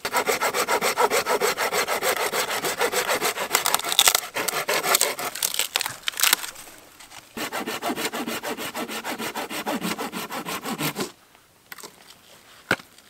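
A thin-bladed hand saw cutting through a dry dead branch in quick back-and-forth strokes. There are two runs of sawing with a short pause between them, and the sawing stops about two seconds before the end, followed by a single sharp knock.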